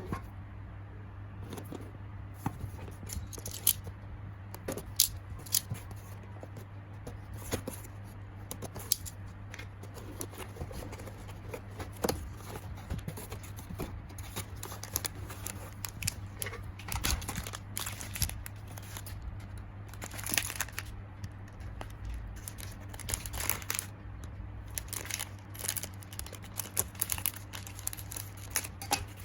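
Plastic packaging crinkling and tearing as a squishy toy is unwrapped by hand, in irregular rustles and crackles over a steady low hum.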